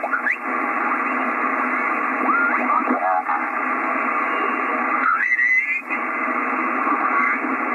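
Receiver audio from an Icom IC-756PRO II HF transceiver as its VFO is tuned up through the 40 m band in lower sideband: steady band hiss, with a few snatches of off-tune signals sliding in pitch as stations are tuned past.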